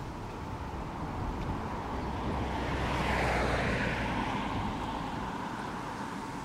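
A motor vehicle passing by, its road noise swelling to the loudest about three seconds in and then fading, over the steady low rumble of wind and a bicycle rolling along.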